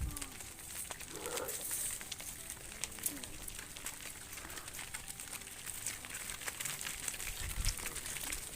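Cattle herd moving: many small clicks and rustles, with a few faint, short calls in the first three seconds.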